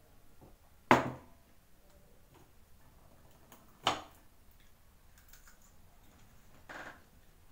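Three sharp knocks and clinks of a mug and fork against a plate and table while eating: a loud one about a second in, another just before four seconds, and a softer one near the end.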